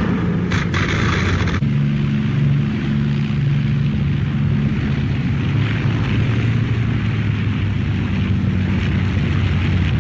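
Avro Lancaster bomber's four Rolls-Royce Merlin piston engines droning steadily, a low multi-toned hum. For the first second and a half a loud rushing hiss sits over the drone, then stops suddenly.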